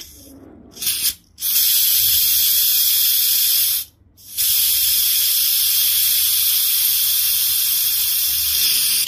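Green gas hissing from a can's nozzle pressed into a WE Tech 1911 gas blowback magazine's fill valve: a few short spurts, then two long steady hisses of about two and four and a half seconds with a brief break between. The magazine already holds gas and will not take more.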